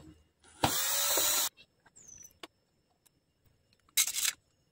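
Cordless drill-driver spinning for just under a second, backing out a screw from the back of a solar floodlight's housing, with a second, shorter burst near the end.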